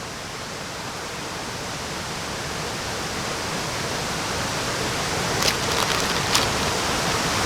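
Steady rushing of a nearby waterfall, slowly growing a little louder, with a few light sharp clicks just past the middle.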